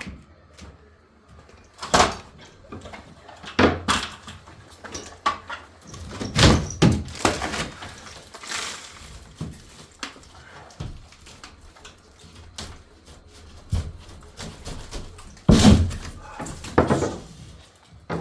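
Irregular knocks and thuds with some scraping from hand work on plaster: old cornice cement and nails being cleared off a plasterboard ceiling edge. There are a handful of sharp impacts about two seconds into the sound, near four seconds, around six to seven seconds and twice near the end.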